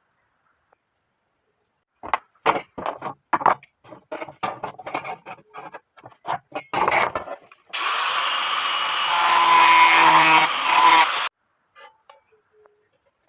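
A series of irregular knocks and clatters, then the angle grinder driving a home-made corn mill runs for about three and a half seconds with a high whine and stops abruptly.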